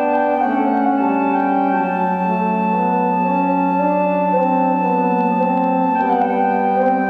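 Pipe organ playing slow, held chords that shift every second or so over a sustained bass note.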